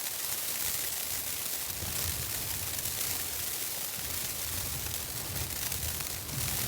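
Wind-driven snow and ice pelting a tent's fabric fly during a blizzard: a steady, dense hiss with fine crackle, with a low rumble joining about two seconds in.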